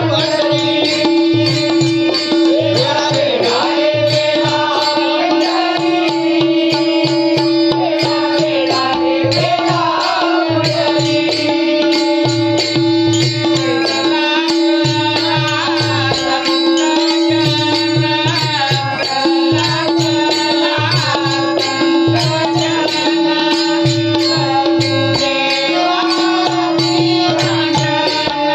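Marathi devotional bhajan: a solo voice sings a winding, ornamented melody over a steady held drone note, with a hand drum keeping a rhythm of low strokes.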